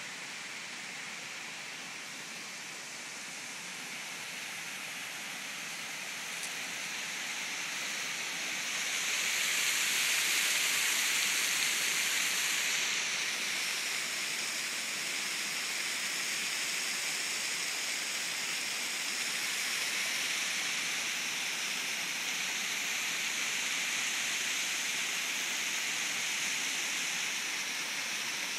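Waterfall and creek water rushing over bedrock, a steady hiss that grows louder about a third of the way in and stays up.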